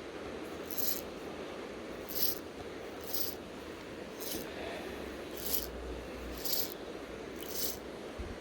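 Fly line being stripped in by hand while retrieving a streamer: seven short hissing pulls about once a second, over the steady rush of the river.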